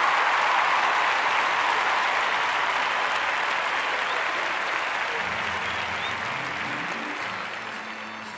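Audience applauding, the clapping slowly dying away. Low music notes come in quietly about five seconds in.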